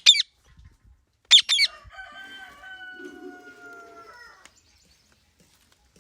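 Rose-ringed parakeet screeching in short, harsh calls: one at the start and two more about a second and a half in. Then a rooster crows one long call of about two and a half seconds, its pitch sinking slowly.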